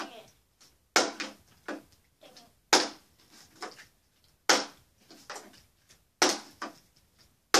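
Plastic water bottle flipped onto a wooden dresser top, hitting the wood with a sharp knock about every second and three-quarters, five times, each followed by lighter knocks as it tips over and is grabbed again.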